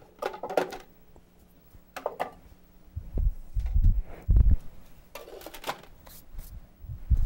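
Kitchenware clattering on a countertop: scattered knocks and clinks with a few dull thumps, the heaviest about four seconds in.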